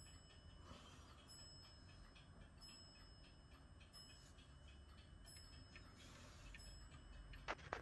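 Eluxa Boulle clock's 8-day pendulum movement ticking faintly. Near the end the striking hammer hits the clock's bell twice in quick succession, and the bell begins to ring.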